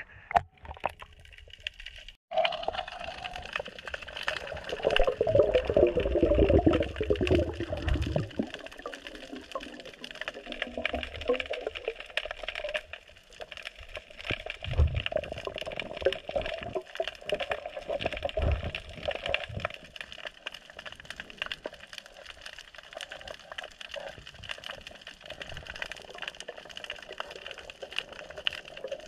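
Underwater sound through a diving camera: moving water with a constant crackle of tiny clicks and a steady hum. Low rushes of water come and go, the strongest about five seconds in.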